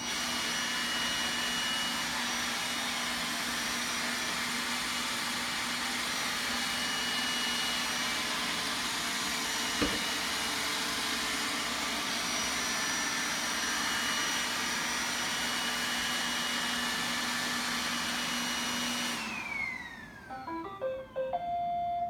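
Roomba robot vacuum running with a steady motor whine as it drives back to its charging dock. A single knock comes about ten seconds in. Near the end the whine falls away as the vacuum winds down on docking, followed by a few short electronic tones.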